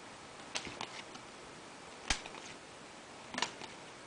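Trading cards being handled and flipped through by hand, giving a few faint clicks and taps. The loudest comes about two seconds in, with a short cluster later on.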